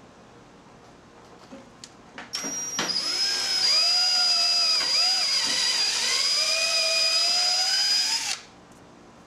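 DeWalt cordless drill boring a pilot hole into a fiberglass boat transom. After a brief trigger blip, the motor runs for about five seconds with a steady high whine, its pitch sagging and recovering as the bit bites under load, then stops sharply.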